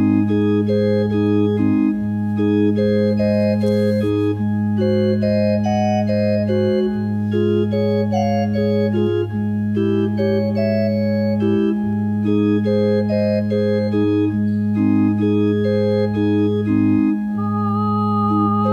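Organ music: long held bass notes changing every two seconds or so under a moving melody of shorter notes. Near the end a high held note with vibrato comes in over the organ.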